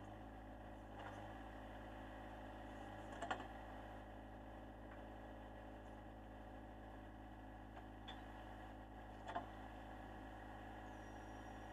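John Deere 1025R compact tractor's three-cylinder diesel idling faintly and steadily, with a few light clicks and knocks, the two loudest about three and nine seconds in.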